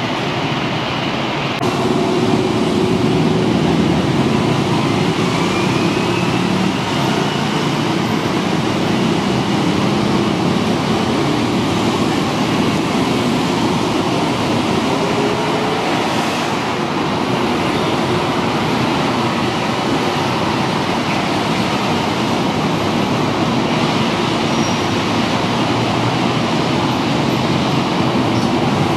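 City road traffic running past below: a steady mix of car, motorbike and bus engines and tyres. It grows a little louder about two seconds in.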